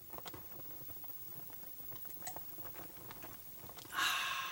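Faint small clicks and mouth sounds as wine is drunk after a toast. About four seconds in comes a sudden ringing tone with several pitches that fades slowly.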